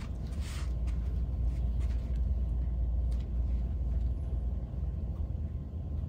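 Steady low background rumble, with a few faint ticks.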